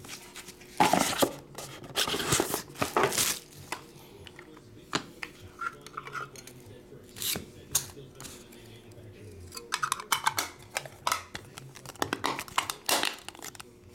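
Clear hard-plastic card case and its stack of cards being handled, giving a string of sharp plastic clicks, taps and short scraping slides. Most of them come in two clusters, one just after the start and one near the end. The lid does not seat properly, which is put down to warped plastic.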